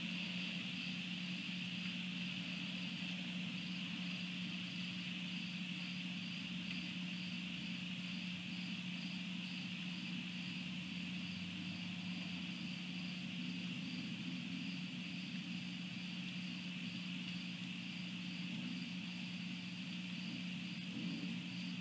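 Steady night-time insect chorus, with one higher chirp pulsing evenly about twice a second above it, over a steady low hum.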